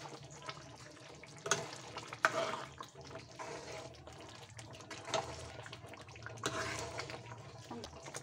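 A steel ladle stirring thin potato curry in a steel kadhai: wet sloshing of the gravy, with a few sharp clinks of metal ladle on the pan.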